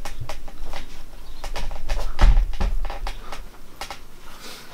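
Irregular light clicks and knocks with a dull thump a little over two seconds in, growing quieter in the last second: handling and movement noise as someone moves about the room.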